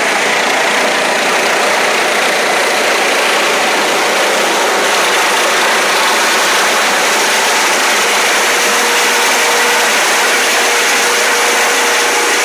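Helicopter running steadily: a loud, even rushing noise from the engine and rotor, with a faint steady whine.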